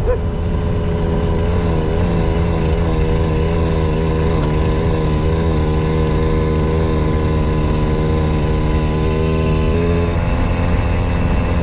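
Puch Maxi 50cc two-stroke moped engine running steadily while riding, its note wavering slightly and shifting a little near the end.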